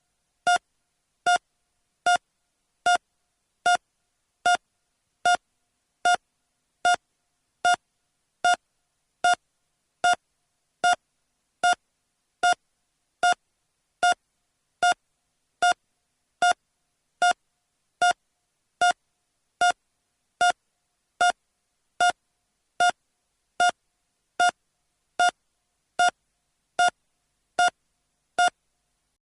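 A long run of short, identical electronic beeps at one steady pitch, a little more than one a second, with silence between them.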